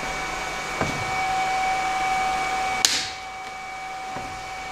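CNC router running with a steady whine and a hiss. There is a light click just under a second in. A sharper click comes about three seconds in, after which the hiss stops and the whine carries on alone.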